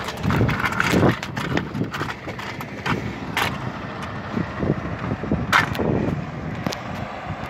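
Empty log truck, its trailer carried piggyback on the tractor, driving past with its diesel engine running as a low rumble, under repeated sharp knocks and thumps on the microphone.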